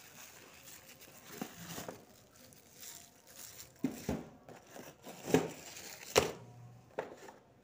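Cardboard box and plastic packaging of a desktop stand being handled: faint crinkling and rustling, broken by several short sharp knocks and clicks as the box is moved and set down.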